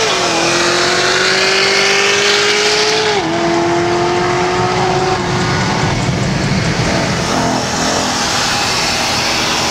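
Car engines at full throttle in a highway roll race. The pitch climbs steadily, dips sharply at a gear change about three seconds in, climbs again and fades away by about five seconds, and then gives way to a lower, steadier engine rumble.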